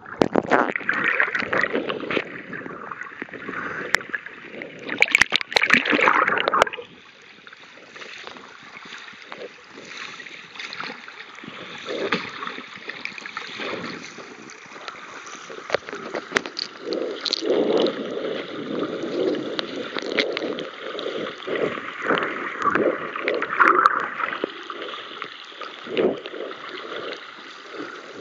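Water heard through an underwater camera: splashing and water rushing over the microphone for about the first seven seconds, then a quieter, uneven gurgling and bubbling under water.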